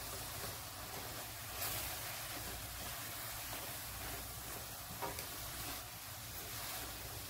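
Coconut, sugar and milk mixture sizzling faintly in a nonstick kadhai as it cooks down and thickens, stirred with a silicone spatula, with a couple of soft scrapes.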